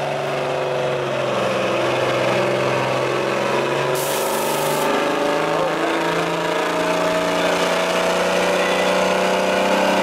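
Diesel engine of an old Peterbilt semi tractor running under throttle; its pitch dips briefly about four seconds in, then climbs steadily as the truck gains speed. A short hiss sounds about four seconds in.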